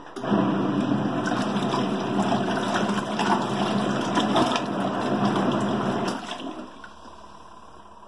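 Praxis Petit 1.2 kg mini washing machine agitating on its rinse cycle: motor hum under water churning and sloshing around the clothes. The churning stops about six seconds in, a pause in the wash cycle.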